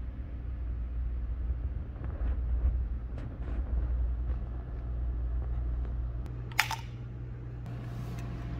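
Handheld phone-camera handling noise and soft footsteps on a tiled floor over a steady low room hum, with one sharp click a little past two-thirds of the way through.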